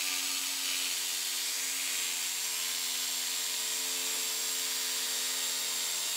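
TACKlife TJS02A barrel-grip jigsaw running at a steady speed with its blade cutting through a wooden board: an even motor whine with the rasp of the blade through the wood.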